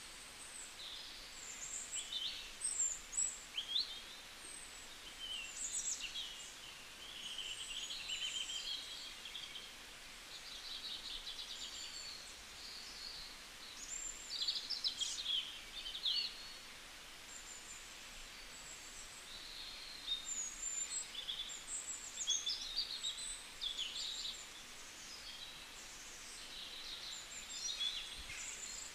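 Small birds chirping and singing: a busy, continuous string of short, varied high calls and quick sweeping notes.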